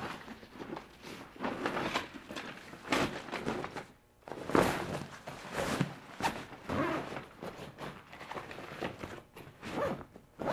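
Rustling of fabric and gear, with a few soft knocks, as a folded kayak spray cover and skirts are stuffed into a bag, in uneven bursts.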